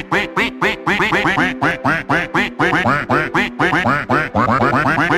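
Duck quacks edited into a fast, rhythmic novelty tune, about five or six quacks a second, over held musical notes.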